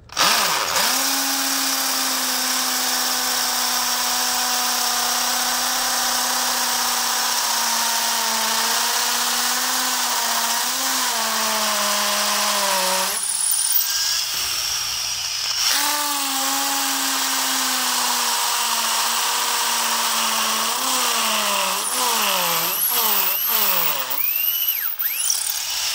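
Electric drill with a triangular-shank masonry bit boring into a concrete floor, its motor whine slowly sagging in pitch under load. It stops about halfway, starts again a couple of seconds later, and near the end the pitch dips and swoops several times as the bit loads up.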